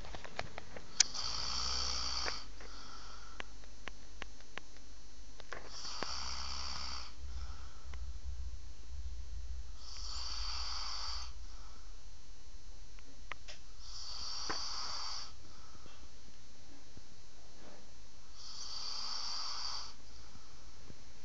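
A sleeping person snoring: five snores, each about a second long and about four seconds apart. There is a sharp click about a second in.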